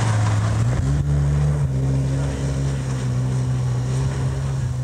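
Opel rally car's engine running hard at high revs, its note stepping up about a second in and then holding steady.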